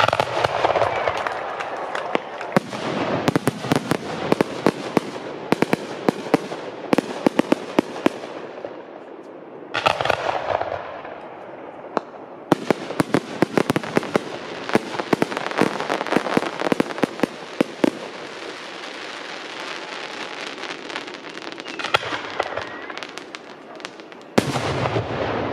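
Fireworks crackling and banging: many sharp pops in dense volleys, with a few louder bangs among them. The volleys thin out about ten seconds in, then pick up again.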